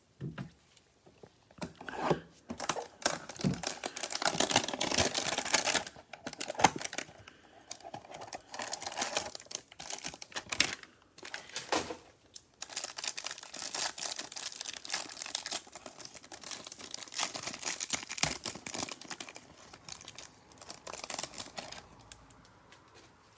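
Cardboard hanger box being torn open, then the cellophane wrap around a stack of trading cards crinkled and peeled off, in a run of crackling tears and clicks.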